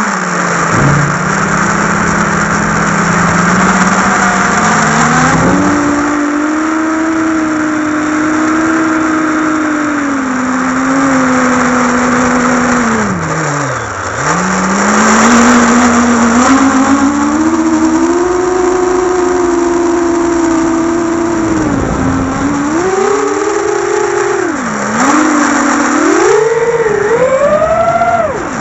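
Electric motors and propellers of an XL7 7-inch FPV quadcopter whining, recorded on board, over a steady rush of air. The pitch follows the throttle: it dips deeply about halfway, then swoops up several times near the end before falling away sharply.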